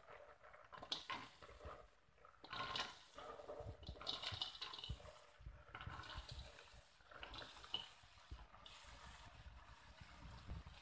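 Wet snails in their shells poured from a bowl into a metal wok, the shells clattering and rattling against the metal and each other amid the splash of the water they carry.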